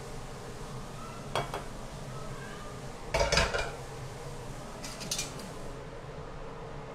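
Metal ladle clinking and scraping against the wok and plate as braised food is dished out: a few short clinks about one and a half, three and five seconds in, the loudest around three seconds.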